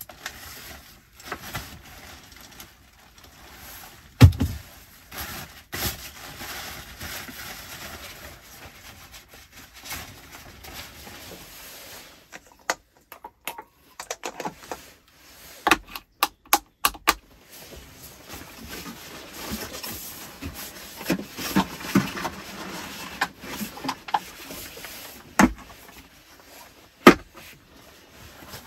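Handling sounds of unpacking a bag and setting electrical parts down on a wooden plank table: rustling of the bag and packaging, with scattered knocks and clicks as objects are put down. One loud thump comes about four seconds in, and a quick run of sharp clicks about halfway through.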